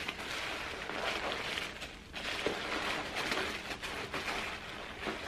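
Packaging crinkling and rustling as the stuffing and wrapping are pulled out of a new handbag, with a brief lull about two seconds in.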